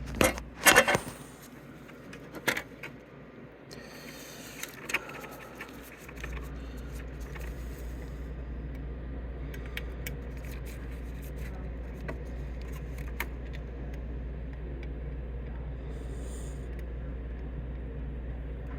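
Sharp plastic clicks and rattles of a ribbon cable connector being handled and plugged into a printer's circuit board, loudest in the first second, with a few softer clicks after. From about six seconds in, a steady low hum sets in.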